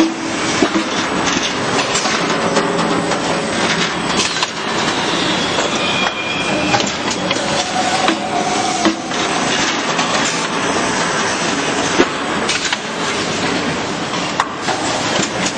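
Sleeve-wrapping machine on a welding-wire coil packing line, running with its roller conveyor: a steady mechanical clatter with scattered clicks and knocks, and brief squeals a little past the middle.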